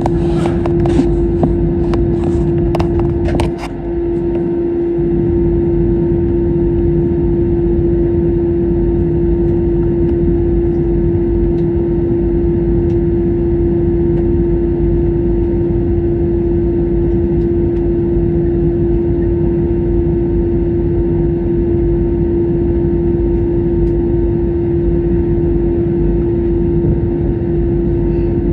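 Cabin noise aboard an Airbus A321neo: a steady jet-engine drone with one strong constant tone over a low rumble. A few sharp clicks come in the first few seconds.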